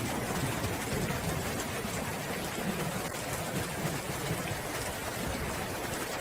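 Steady rain falling in an even hiss, with a low rolling rumble of distant thunder underneath.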